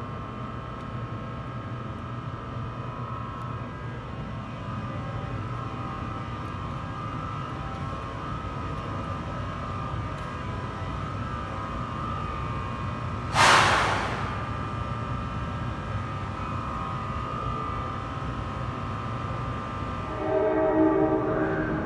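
Bombardier ALP-46A electric locomotive standing at the platform, its equipment giving a steady hum with a high whine. About halfway through, a short sharp burst of air hisses out for about half a second. Near the end a horn sounds.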